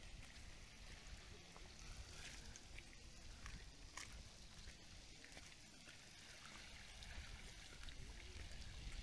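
Faint shore ambience at a rocky tide flat: shallow water trickling and gurgling among wet rocks and pools, over a low steady rumble, with scattered small clicks.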